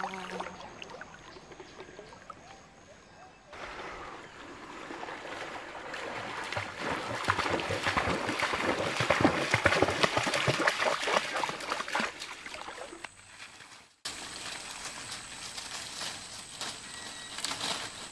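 A dog bounding through shallow river water: quick, fast splashes that build up loudly and then fade. Either side are quieter stretches: a faint water sound, and later a steady hiss with a thin high whine.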